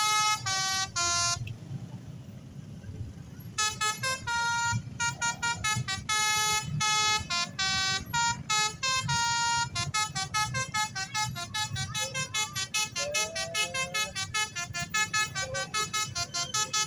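Basuri 'telolet' multi-tone bus horn playing a tune of short, stepped notes. It pauses for about two seconds near the start, and in the second half the notes come faster and closer together, over a low rumble.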